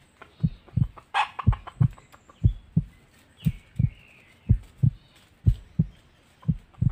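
Heartbeat sound effect: steady low double thumps, a pair about once a second. Fainter high calls sound over it about a second in and again near the middle.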